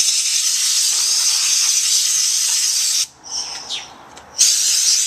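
Compressed air from an air compressor's blow nozzle hissing as it blows dust out of a lawn mower's air filter housing: one long blast of about three seconds, then after a short pause a second blast near the end.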